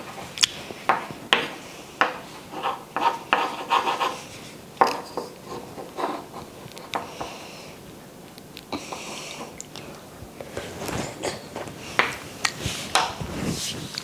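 A wooden spoon scraping and clicking against a plate of syrup and roasted soybean powder, in irregular strokes with a short scraping stretch in the middle.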